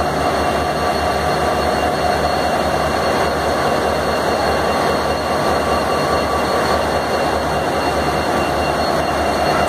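An Indian Railways diesel locomotive idling alongside with a steady low engine hum, under the continuous hiss of heavy rain. The sound holds level throughout.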